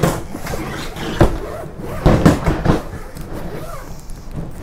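Knocks and thumps of a suitcase being handled and opened: a sharp click about a second in, then a short cluster of knocks.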